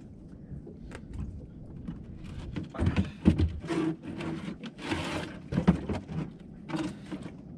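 Plastic ice chest being opened and handled: a few irregular knocks and clunks of the lid, with a brief rustling scrape about five seconds in.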